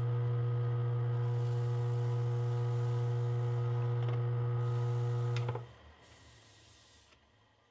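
Jet mini wood lathe's motor humming steadily as it spins the vase, then cutting out about five and a half seconds in as the lathe is switched off.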